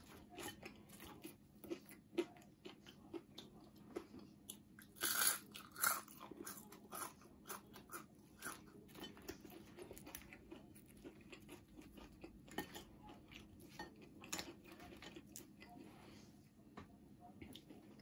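Crispy oven-baked potato fries being bitten and chewed, a string of crisp crunches, loudest about five to six seconds in.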